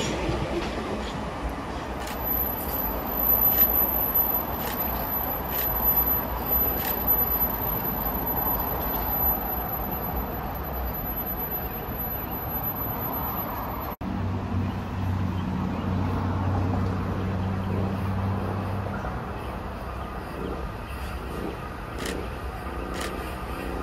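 Steady outdoor traffic rumble beside a rail line. A thin, high steady whine runs through the first half, and a low steady hum lasts a few seconds after a brief drop about two-thirds of the way through.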